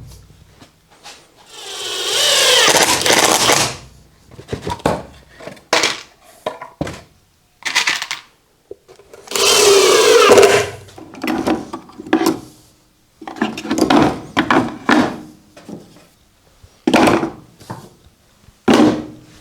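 A power tool runs in two bursts of about two seconds each, its pitch sweeping as it speeds up and slows. Between the bursts come short knocks and taps.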